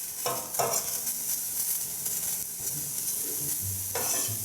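Strips of beef sizzling in hot olive oil on a grill pan, with a few short scrapes of a utensil against the pan as the meat is stirred, twice in the first second and once near the end.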